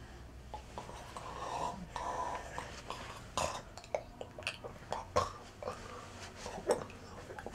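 A man making short, irregular throat and mouth noises, with scattered soft clicks and rustles.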